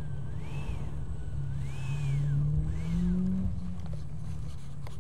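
Electric ducted fan of an 80mm RC jet whining at taxi power on the ground, its pitch swelling up and back down three times with short throttle blips.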